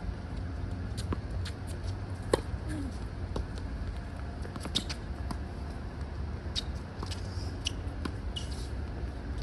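Tennis ball struck with rackets during a baseline rally on a hard court: sharp pops every second or two, the loudest about two seconds in, with lighter ticks between them and a steady low rumble underneath.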